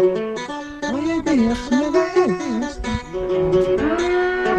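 Music: a song with plucked-string accompaniment and a melody line that holds and glides between notes.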